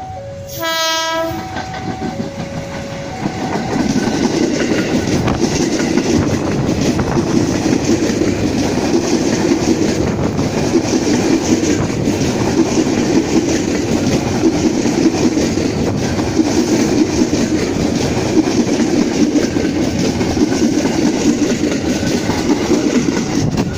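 A JR 205 series electric commuter train sounds its horn once, briefly, then passes close by. Its wheels clatter over the rail joints in a dense, steady rumble that lasts about twenty seconds and stops just before the end. A steady two-note alternating tone in the background stops a few seconds in.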